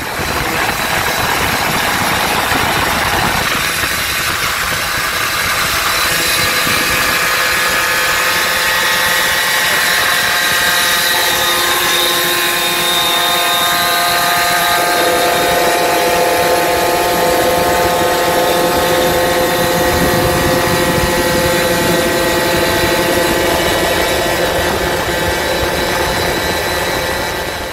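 Several Puch mopeds' two-stroke engines running at riding speed, heard from one of the moving mopeds. The engine note holds steady, with a few shifts in pitch along the way.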